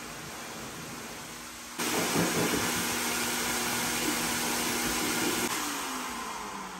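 Electric blower motor running with a steady rushing hiss over a low hum, getting louder about two seconds in. Over the last second or so the hum sinks in pitch and the sound eases off.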